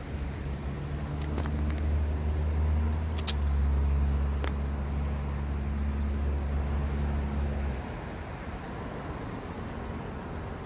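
A steady low engine hum, unchanging in pitch, that cuts off suddenly about eight seconds in, with a few short sharp clicks over it.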